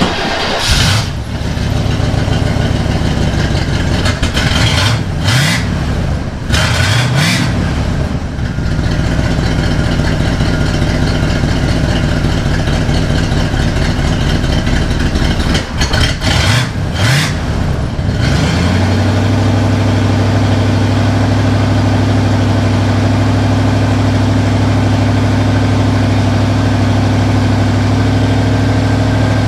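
Small-block Chevy V8 in a 1977 Chevy C10 running through its old, leaking exhaust: a turbo muffler with holes in it, holes in the Y-pipe, no tailpipes. It is revved in several blips through the first eighteen seconds or so, then settles to a steady idle.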